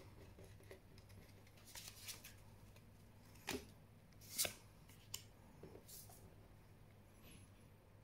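Magic: The Gathering trading cards being slid one at a time off the top of a handheld stack: a handful of faint, brief swishes of card rubbing on card, the loudest about four and a half seconds in.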